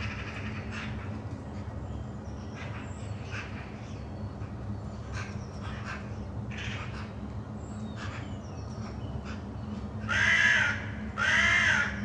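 Crows cawing: scattered distant caws throughout, then two loud, drawn-out caws close by near the end, over a steady low hum.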